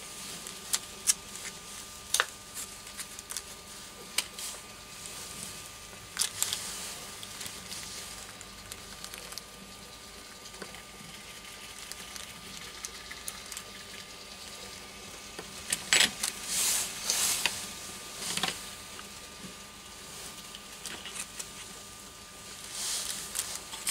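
Small parts being handled on a workbench: scattered light clicks and taps as tiny plastic armature bearings are tipped out of their small plastic packet, with a few short bursts of packet rustling, the loudest about two-thirds of the way in.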